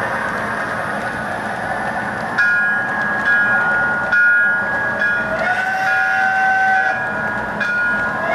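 O-gauge model freight cars rolling along three-rail track with a steady rumble. About two seconds in, the MTH L5 locomotive's electronic sound system starts sounding a two-note horn in several long blasts, with a lower note joining about halfway through.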